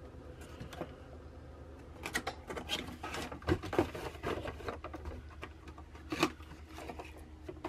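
Cardboard box of new engine filters being opened and handled: irregular rustles, taps and short scrapes of cardboard, over a low steady hum.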